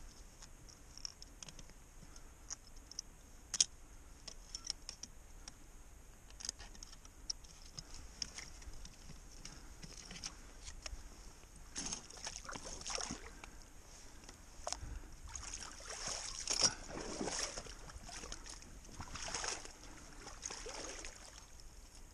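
Scattered sharp metal clicks from setting tongs working the springs of a 330 body-grip trap, then shallow muddy water sloshing and splashing several times in the second half as a trapped beaver is handled in it.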